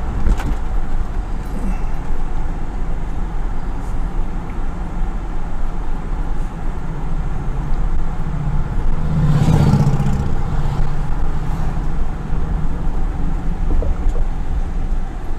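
Steady engine and road noise from inside a moving vehicle towing a small travel trailer, swelling briefly about nine seconds in.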